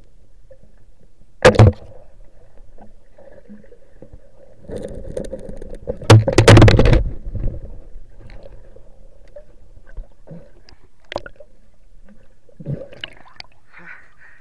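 Water sounds heard by a camera underwater during a night spearfishing dive in a river: a sharp double knock about a second and a half in, then a louder stretch of bubbling and splashing water around six to seven seconds in, followed by a few faint clicks.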